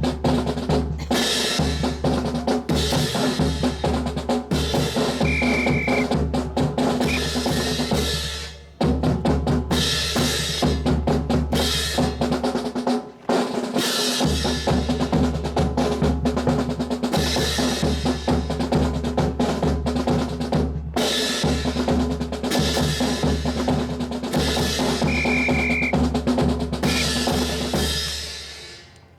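Marching snare and bass drums playing a continuous drum cadence, with short breaks about a third of the way in and a fade near the end. A short high steady tone sounds twice, once early and once near the end.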